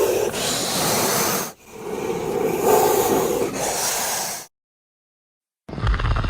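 Sound-effect hiss: two long rushing bursts of noise, each about three seconds, with a brief break between them. After a second of silence, a loud, deep sound starts near the end.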